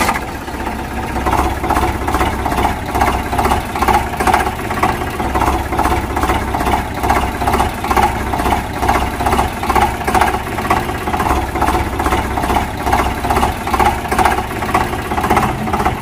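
Tractor engine running at a steady idle, with an even, regular chugging beat.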